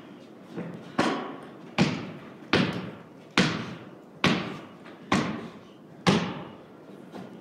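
A basketball dribbled on a wooden plank floor: seven hard bounces, a little more than one a second, each echoing in a large hollow room.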